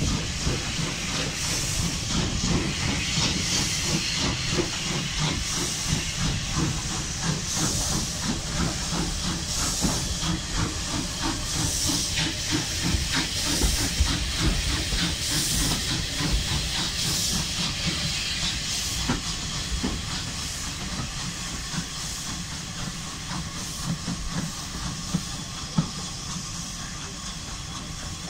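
Steam locomotive 34092 City of Wells, a Bulleid West Country class Pacific, working a train, heard from an open carriage window: fast regular exhaust beats and steam hiss over the rumble of the coaches on the rails. The sound eases a little after about two-thirds of the way through.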